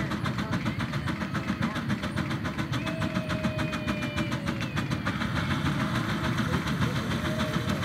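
Miniature Case steam engine running with a rapid, even exhaust chuff up its smokestack: the blast that drafts the firebox and throws the sparks.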